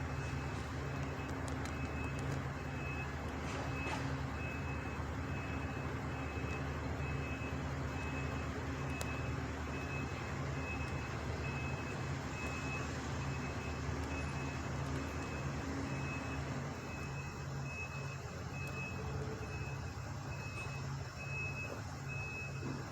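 Debris truck backing up: its reverse alarm beeps at an even pace over the steady low running of its engine.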